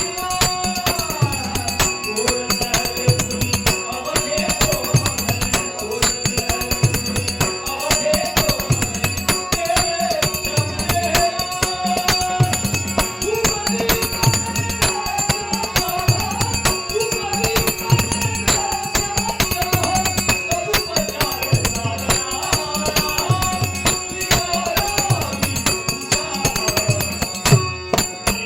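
Marathi devotional bhajan: a sung melody over regular pakhawaj drum strokes and steady jingling percussion.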